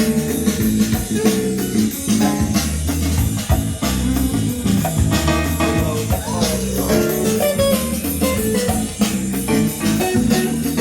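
Cool jazz instrumental led by guitar, with a moving bass line and drums.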